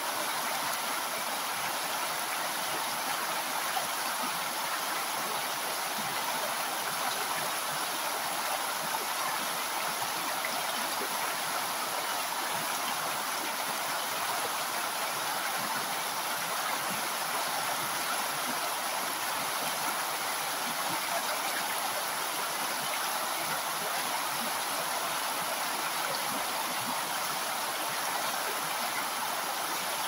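Mountain river running steadily: an even rush of flowing water, more hiss than rumble, with no change or break.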